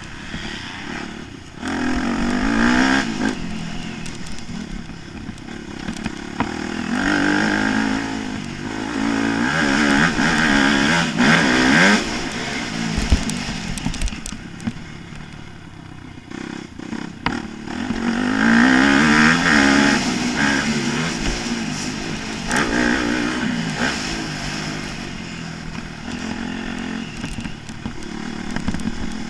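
Motocross bike engine heard from an onboard camera, revving hard and climbing in pitch as it accelerates, then dropping off for the corners, over and over as it laps a dirt track.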